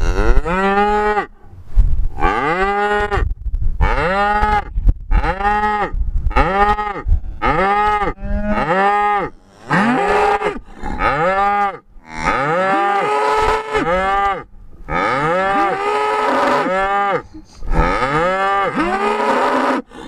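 A herd of beef cattle mooing, one call after another about every second, each call rising and then falling in pitch. In the second half the moos grow longer and overlap as several cows call at once.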